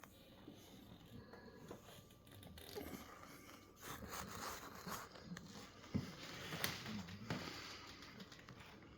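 Faint snoring from someone asleep: a slow, noisy breath that swells in the middle and eases off, with a low wavering rasp and a few small clicks.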